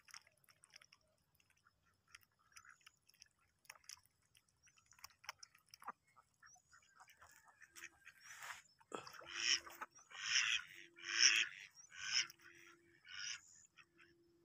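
Domestic ducks dabbling with their bills in shallow water: faint scattered clicking and slurping. About eight seconds in come about six loud, rasping quacks, roughly one a second.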